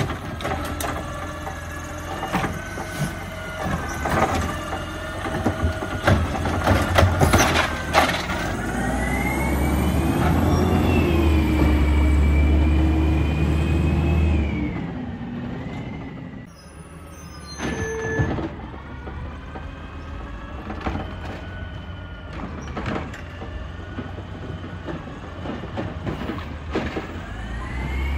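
Automated side-loader garbage truck working curbside carts: the arm's hydraulics whine while carts clank and bang against the hopper for the first several seconds. Then the truck's diesel engine revs up and pulls away, its pitch rising and falling, and it runs more quietly until it revs again as it comes back near the end.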